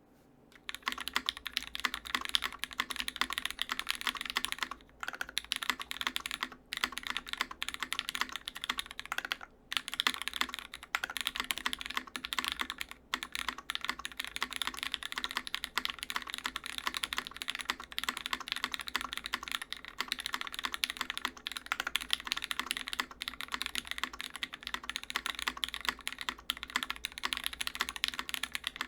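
Fast, continuous typing on a custom tenkeyless mechanical keyboard with lubed Cherry Hyperglide MX Black linear switches in an aluminium plate, keys clacking under GMK keycaps, with a few brief pauses.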